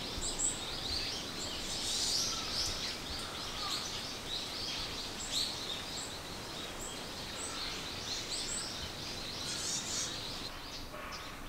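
Small birds chirping in trees: a dense scatter of short, high calls over a steady background hiss.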